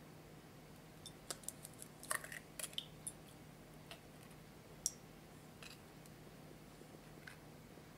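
Eggshell halves clicking and crackling as an egg yolk is passed back and forth between them to separate it from the white: a quick cluster of small crisp clicks from about a second in, then a few single clicks, the sharpest near the middle.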